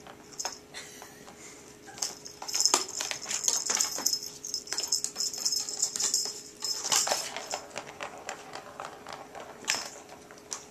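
Cats at play: irregular scratching, rattling and clicks in bursts, busiest for the first two-thirds, as a Siamese cat paws at a cardboard scratcher beside a plastic ball-track toy.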